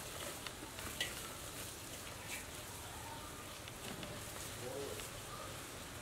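Hands working wet, chili-coated cabbage kimchi over a glass jar: soft wet crackles and a few small clicks, scattered through a quiet background.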